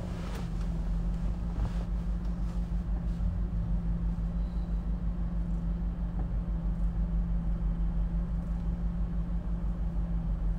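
Car engine idling, heard from inside the cabin: a steady low hum with a fast, even pulse.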